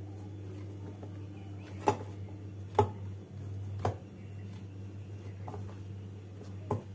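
Maida dough being kneaded by hand in a stainless steel bowl, with about four sharp knocks of the bowl as it is pushed against the counter, over a low steady hum.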